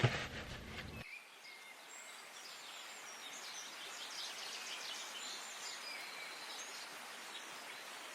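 Faint birdsong outdoors: several birds chirping, with short high notes and little trills over a quiet background. Just before it, right at the start, there is a brief knock.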